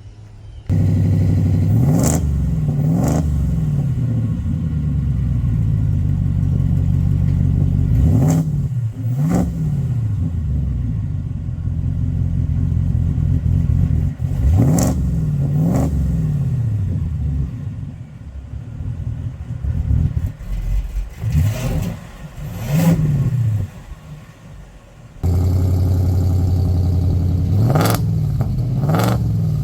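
A Whipple-supercharged Ford Raptor R's 5.2 L V8 starts with a loud burst and idles, then is revved in pairs of quick throttle blips four times, its exhaust note changing as the drive modes are switched between revs. Near the end a second Whipple-supercharged Raptor R starts up suddenly and is revved twice.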